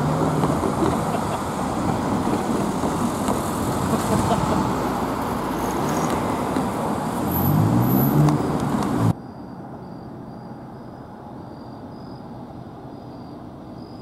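Cars driving over a railroad grade crossing one after another, the loudest passing about eight seconds in. About nine seconds in the sound cuts off abruptly to a much quieter background with a faint, high chirp repeating about twice a second.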